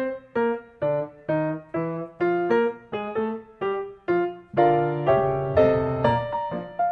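Background music: a piano plays a light melody of separate notes, about two a second, with fuller chords and low notes joining about two-thirds of the way through.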